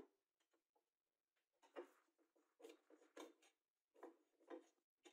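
Very faint, irregular clicks and scrapes of a screwdriver and fingers working screws and wires in a bench grinder's metal switch box.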